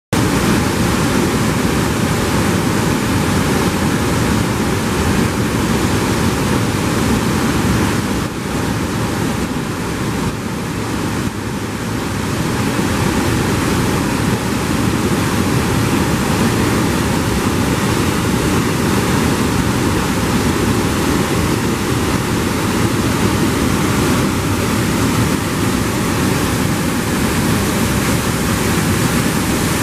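River waterfall: whitewater rushing and crashing down over rock ledges in a loud, steady rush of noise, easing slightly for a few seconds about eight seconds in.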